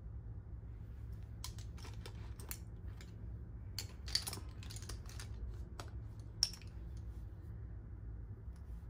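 A run of light, irregular clicks and taps from makeup items and other small objects being handled, starting about a second and a half in, with two louder clicks about four and six and a half seconds in. A steady low room hum runs underneath.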